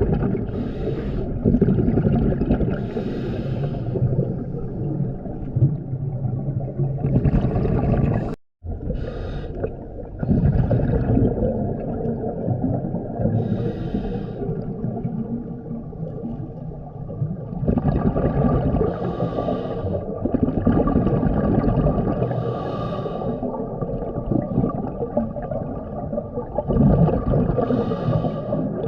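Scuba regulator breathing heard underwater: a hiss at each inhalation every few seconds, between steady rumbling and gurgling from the exhaled bubbles. The sound cuts out for an instant about a third of the way in.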